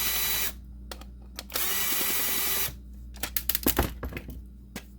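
Small handheld power tool running in two short bursts of about a second each, with a steady whine, as it works on a plastic game cartridge shell. Sharp clicks and rattles follow, about three seconds in.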